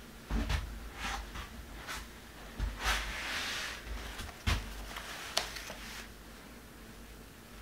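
Scattered handling noises: a few sharp clicks and knocks, with short rustles between them.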